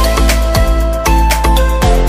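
Background music with a steady drum beat, deep bass and sustained melody notes.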